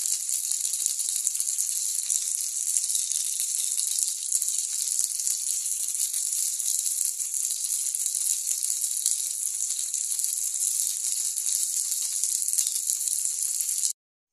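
Breaded chicken pieces and chicken wings deep-frying in hot oil in a divided frying pan: a steady sizzle full of fine crackling, which cuts off suddenly near the end.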